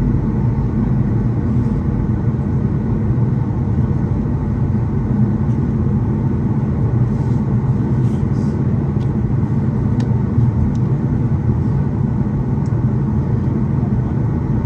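Steady low rumble of a Boeing 737 passenger cabin heard from a window seat, the engines running at low power as the airliner taxis.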